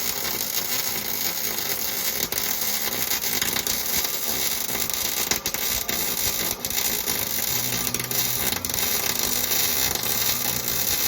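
MIG welding on sheet metal: a steady, loud crackling hiss with many sharp pops.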